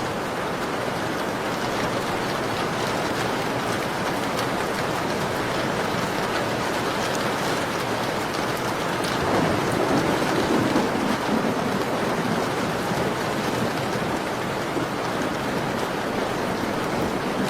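Steady rain pattering on a window pane, with a low, rumbling swell rising and fading about nine seconds in.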